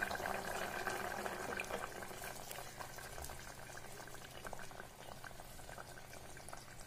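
Pumpkin curry bubbling in an open pressure cooker pot: a steady crackle of small bubbles popping at the surface, easing off gradually.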